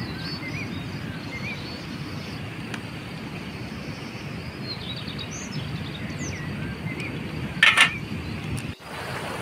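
Outdoor ambience: a steady low wash of noise with small birds chirping now and then, and one brief louder noise about three-quarters of the way through.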